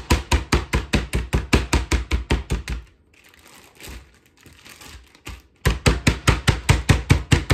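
Meat mallet pounding chicken breasts sealed in a plastic zip-top bag, rapid even blows about five a second. The blows stop for a couple of seconds while the bag is shifted, then start again.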